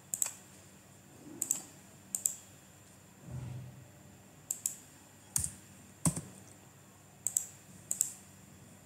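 Computer mouse and keyboard clicks: about a dozen short, sharp clicks spaced roughly a second apart, several in quick pairs, as a settings wizard is clicked through and a disk size typed in. There is a brief low hum about three seconds in.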